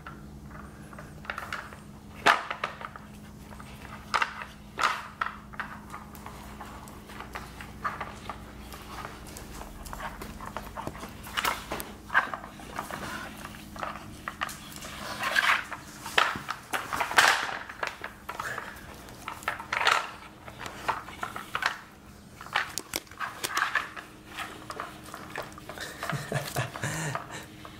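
Siberian husky working a stacked plastic treat-puzzle toy with its nose: irregular clicks and knocks of hard plastic as the toy's tiers are pushed, turned and shifted on the tile floor, busiest in the second half.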